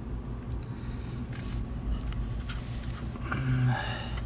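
Light scrapes and a few small clicks and knocks as a removed oil filter is worked around parts of a truck's engine bay, over a steady low hum.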